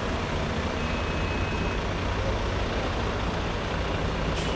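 Vehicle engine running steadily with constant road and traffic noise, with a short click near the end.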